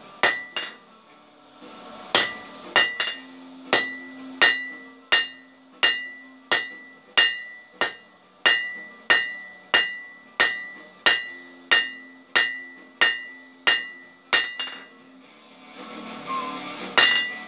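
Blacksmith's hand hammer striking a red-hot steel bar on an anvil. It is a steady run of blows about two every three seconds, each with a bright metallic ring. There is a short pause early on and another near the end.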